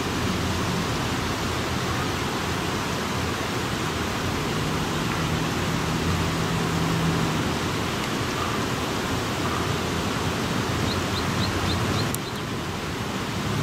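Steady outdoor hiss with no clear single source. A faint low hum comes in for a few seconds midway, and a quick run of five high chirps comes about eleven seconds in.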